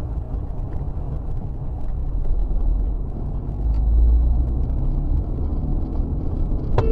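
Steady low rumble of a car driving along a road, with engine and tyre noise heard from a dashcam inside the car, swelling a little about four seconds in. A sharp click sounds just before the end.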